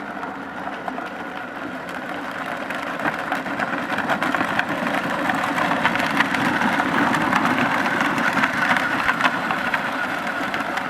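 An engine-like motor running steadily with a clattering rattle, getting slowly louder.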